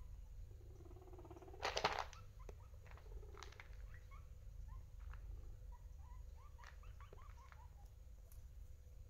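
Guinea pigs making faint short squeaks and chirps throughout, with a low pulsing rumble about a second in. A brief burst of clicks and rustling near two seconds is the loudest moment, and scattered small clicks follow as the animals move about.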